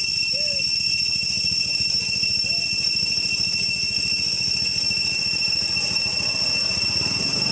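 Steady high-pitched insect drone, as of cicadas, with a low engine-like rumble underneath and a couple of faint short calls.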